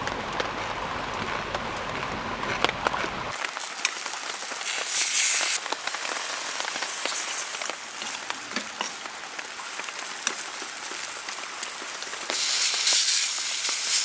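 Rain pattering on a tent for the first few seconds, then oysters and mushrooms sizzling in a hot frying pan while a metal spoon stirs and clicks against it. The sizzle swells briefly about five seconds in and again near the end as raw beef goes into the pan.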